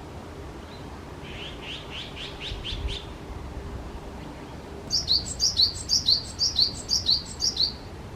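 A small bird calling: a quick run of about eight short notes, then about two seconds later a louder run of about ten sharp notes, each falling in pitch.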